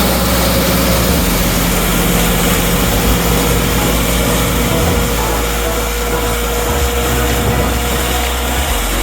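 John Deere combine harvester running steadily under load, its engine and threshing machinery making a constant, dense drone with a few steady tones.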